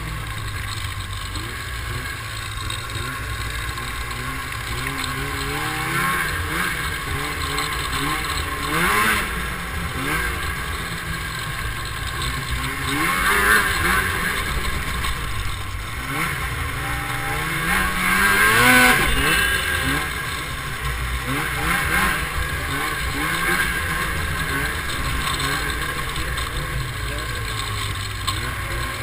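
Snowmobile engines running and revving on the move, the pitch rising and falling again and again over a steady rushing hiss. The loudest swell comes about two-thirds of the way through.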